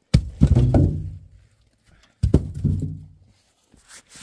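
Firewood rounds tossed into a wooden-sided box: two heavy hollow thunks about two seconds apart, each ringing briefly in the box before dying away.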